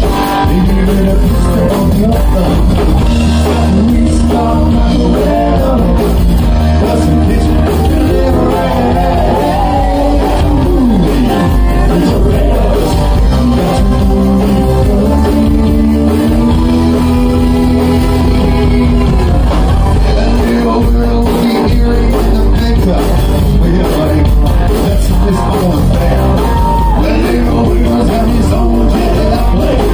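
Live rock band playing loud: electric guitars, bass and drums with a singer.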